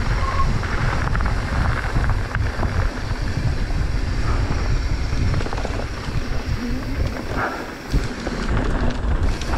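Mountain bike descending a dirt singletrack at speed: wind buffeting the microphone over the rumble and rattle of the tyres and bike on the trail.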